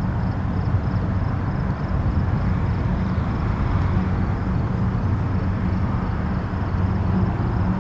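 Distant highway traffic: a steady, even rumble of passing vehicles with a low hum underneath. A faint high-pitched pulsing chirp repeats a few times a second throughout.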